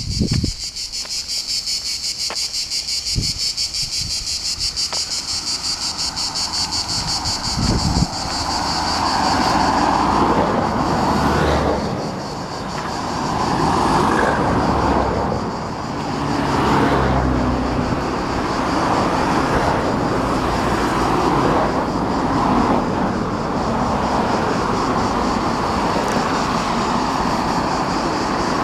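A steady, high insect chorus, with passing road traffic coming in about a third of the way through, swelling and fading several times.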